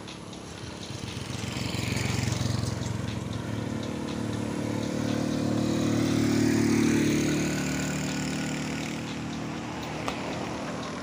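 Motor vehicles passing close on the road, their engine sound swelling and fading: one about two seconds in, then a louder, longer pass around six to seven seconds in. Under them runs the fine, regular ticking of a coasting bicycle's freewheel hub.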